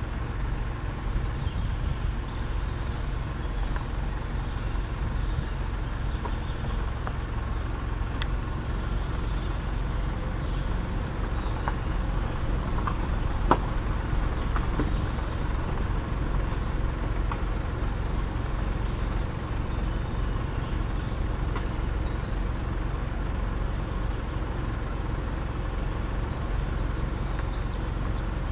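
Faint songbirds calling here and there in the forest over a steady low rumble, with a few light clicks about halfway through.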